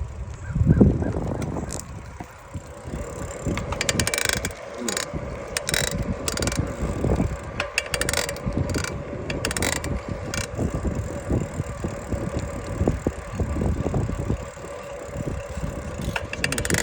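Specialized Sirrus X 4.0 bicycle making a repeated, irregular mechanical clicking over a low rumble. The owner thinks it comes from the crank, while the shop blamed first the pedal and then the chain.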